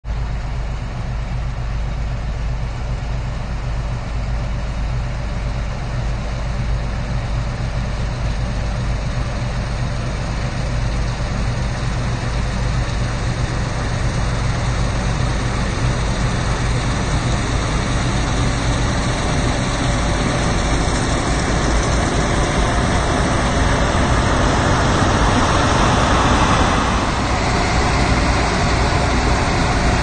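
Claas Trion 650 combine harvester running while cutting a cereal crop: a steady, deep mechanical rumble that grows louder as the machine comes closer, loudest about 26 seconds in.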